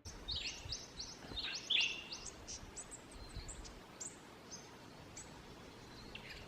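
Small birds chirping: a quick run of short, high chirps, each sliding downward in pitch. They are densest over the first four seconds and thin out after that, over a faint background hiss.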